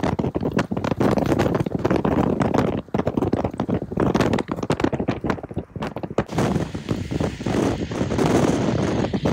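Strong, gusty wind buffeting the microphone: a loud, uneven rush that comes and goes, dipping briefly about three seconds in and again around five to six seconds.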